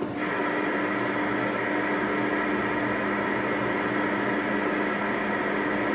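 Steady static hiss from a CB radio's speaker on an open channel, coming on suddenly at the start over a low steady hum. No reply comes through.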